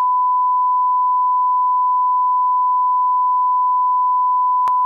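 Steady 1 kHz reference tone, the line-up test tone that accompanies SMPTE colour bars: one unbroken pure pitch, with a brief click near the end.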